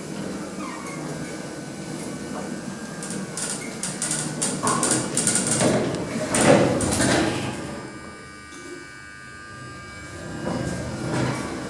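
Dover lift's sliding doors moving and clattering, loudest a little past halfway, then a quieter stretch with a faint steady whine.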